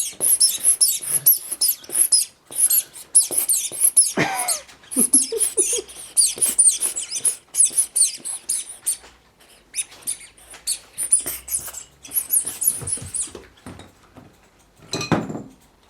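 Squeaky rubber duck toy being chewed by a puppy: rapid bursts of high-pitched squeaks, dense at first and thinning out in the second half, with a short lower noise near the end.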